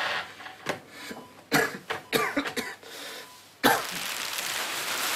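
A young man coughing several times in short bursts. About three and a half seconds in, a loud steady hiss starts suddenly.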